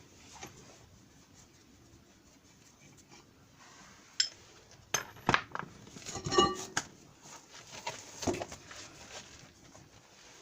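Metal clinks and knocks of tools and parts on a power tiller's wheel hub as the wheel is being taken off, with a ringing metallic strike near the middle.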